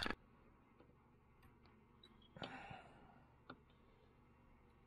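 Near silence with a few faint, scattered metal clicks from a small steel pick tool working at the small end of a Polaris TX340 connecting rod, and a brief soft hiss about halfway.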